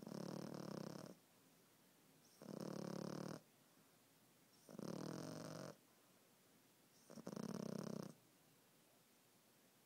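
French bulldog puppy snoring in its sleep: four snores at an even pace, one about every two and a half seconds, each lasting about a second.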